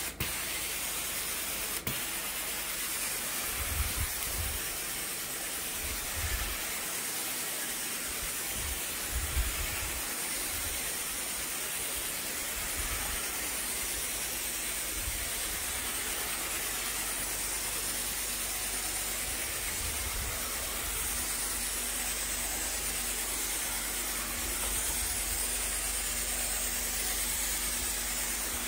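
Carpet-cleaning extraction wand spraying and vacuuming water from the carpet: a steady hiss with a wavering high whistle, and a few dull low thumps.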